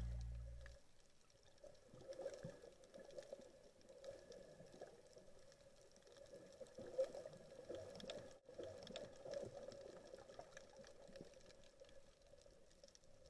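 Faint underwater ambience picked up by a submerged camera: a low steady hum with scattered faint clicks and crackles. Background music fades out in the first second.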